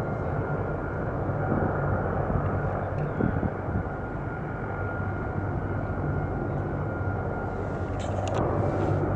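E-2D Advanced Hawkeye's turboprop engines running on the ground with the propellers turning: a steady drone with a low hum and a thin, high whine.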